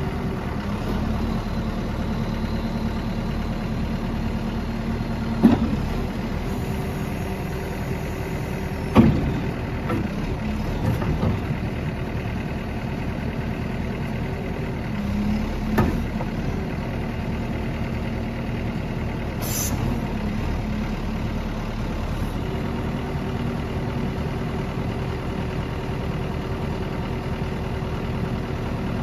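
Terex TX760B backhoe loader's 91 hp Perkins diesel idling steadily, with a few short, sharp knocks along the way.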